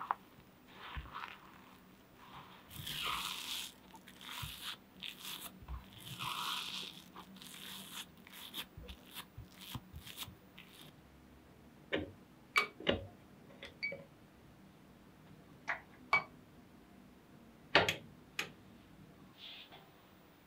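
Silicone spatula stirring and pressing crumbly oat-flour cookie dough in a glass bowl, with soft crunching and scraping. From about halfway, this gives way to scattered sharp clicks and knocks of the spatula against the glass bowl, a few with a short ring.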